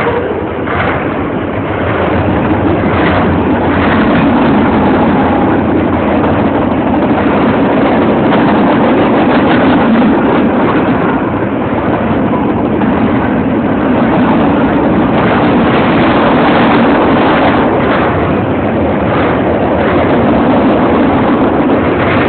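Freight train cars rolling past close by at speed: a loud, steady rumble and clatter of steel wheels on the rails.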